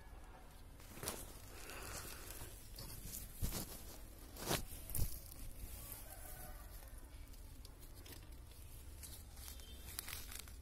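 Rustling and crinkling of plastic sheeting and debris being disturbed, with a few sharp knocks and scrapes about 1, 3.5, 4.5 and 5 seconds in.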